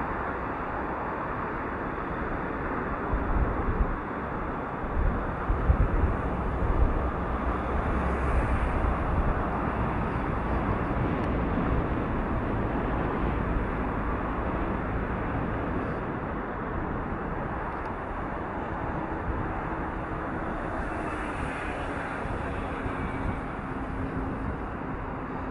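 Steady rushing outdoor noise, with gusty low rumbles a few seconds in and a faint hum near the end.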